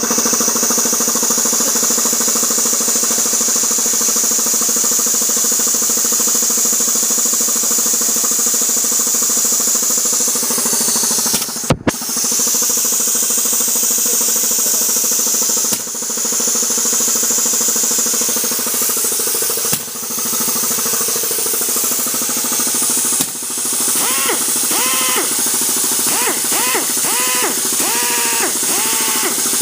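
Vintage Tecalemit piston compressor pump, driven by an electric motor, running steadily and pumping into a small tank. About 12 seconds in comes a single sharp bang from the release valve letting go, because the tank is so small. In the last few seconds a whine rises and falls over and over above the running pump.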